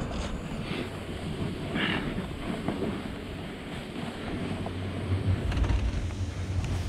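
Wind buffeting the microphone of a pole-mounted camera while a snowboard slides through powder snow with a steady hiss. The low wind rumble grows stronger about five seconds in.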